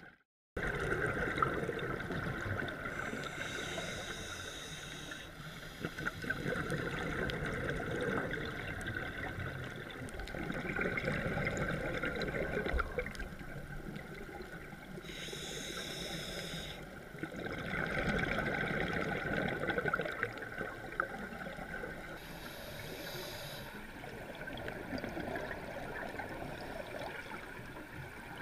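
Scuba diver's regulator breathing heard underwater: bubbling, gurgling swells of exhaled bubbles that come and go every few seconds, with a hiss at times.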